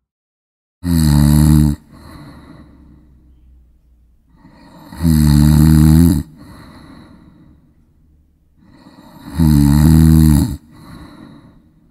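A person snoring: three loud snores about four seconds apart, each followed by a quieter breath.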